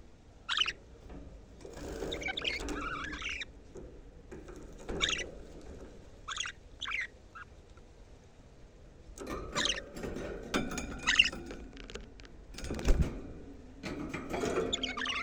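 Budgerigars chirping and chattering: single sharp chirps between several longer bursts of warbling. A dull thump about thirteen seconds in.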